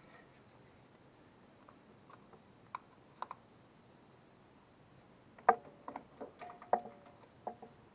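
A few light clicks, then a quick cluster of clicks and short clinks about five and a half seconds in, from distributor parts being handled and fitted on the engine.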